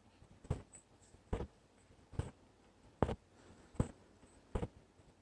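Embroidery needle and thread pulled through fabric while working outline stitch: a short, sharp sound with each stitch, six in all, about one every 0.8 seconds.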